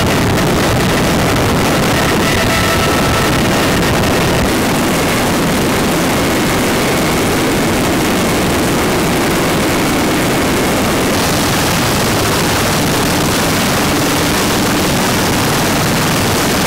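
Loud, steady noise of a CH-53E Super Stallion heavy-lift helicopter's turbine engines and rotors, with faint steady whine tones over it at first. The sound dips slightly about four seconds in and then runs on steadily.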